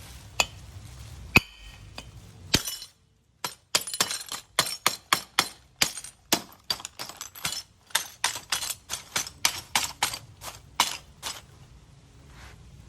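Krate Tactical 'The Ghost' double-action OTF knife repeatedly firing its blade out the front and snapping it back, each stroke a sharp metallic click. A few spaced clicks come first, then a fast run of them, about three or four a second, which stops shortly before the end.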